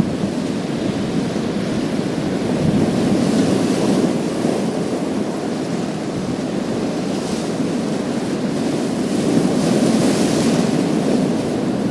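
Sea waves washing onto a pebble beach: a steady low wash, swelling twice, around three to four seconds in and again around ten seconds in, when a higher hiss of water over the stones rises.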